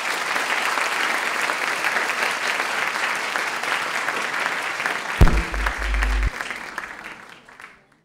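Lecture audience applauding, dense and even, fading away near the end. About five seconds in there is a low thump with a short rumble under the clapping.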